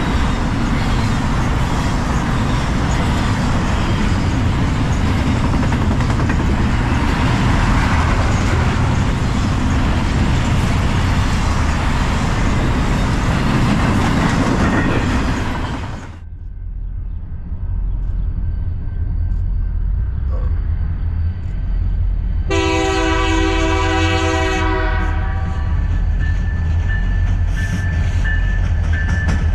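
A train passing close, a loud steady rushing noise that cuts off suddenly about sixteen seconds in. Then a low rumble of diesel locomotives, and a locomotive air horn sounds one chord for about two and a half seconds; the horn starts again right at the end.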